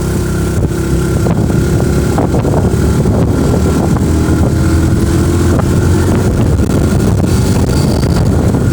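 A motor vehicle running steadily on the road, its engine and road noise making a continuous low rumble.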